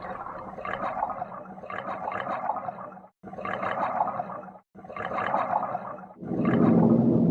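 Scuba divers' exhaled air bubbling out of their regulators underwater, in repeated gurgling bursts of about a second and a half each. About six seconds in, a low ringing gong-like tone with music comes in and takes over.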